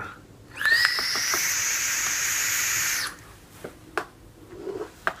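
Long draw on a Cats RDA clone rebuildable dripping atomizer fired with a 0.16-ohm dual-coil build. A steady hissing whistle of air and sizzling coil lasts about two and a half seconds, its pitch rising slightly as it starts, then stops sharply. A soft exhale follows near the end.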